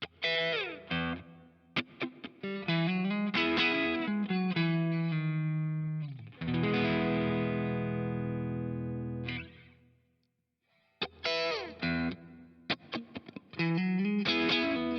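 Vintage V6H Icon HSS electric guitar played solo with a lightly distorted tone through a Kemper profiler: quick single-note phrases, then a chord held ringing for about three seconds. After a short pause, more fast licks follow.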